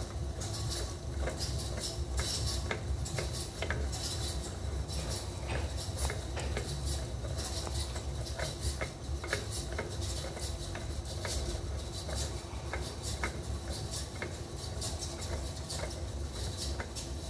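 Helical gears and roller bearings of an open two-stage gearbox clicking and rattling irregularly as the input shaft is turned by hand, over a steady low rumble.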